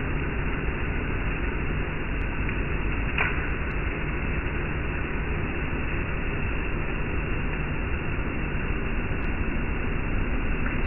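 Hoover Windtunnel Plus canister vacuum running with its power head on the floor: steady motor and airflow noise with a low hum, and a light tick about three seconds in.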